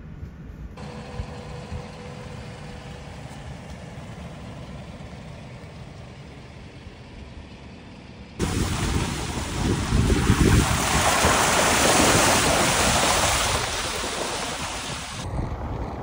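Truck driving along a sandy dirt forest road: a low steady rumble of tyres and engine. About eight seconds in, a much louder rushing of road and wind noise takes over for several seconds, then drops back near the end.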